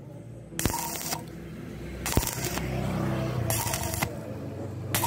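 Stick-welding arc on thin square steel tubing, crackling in short bursts about every second and a half with a lower steady hum between them. The welder works in stop-start bursts so the thin tubing does not burn through. A sharp click sounds about two seconds in.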